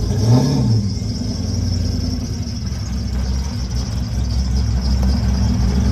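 LS1 V8 engine of a box-body Chevrolet Caprice running at low speed as the car rolls slowly forward, with a short rev that rises and falls just after the start.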